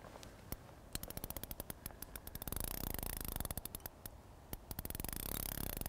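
Shimano big-pit carp reel's drag clicking as a hooked carp pulls line off the spool. Rapid clicks from about a second in speed up into a continuous buzz for a second or so, then break back into separate clicks that run together again near the end.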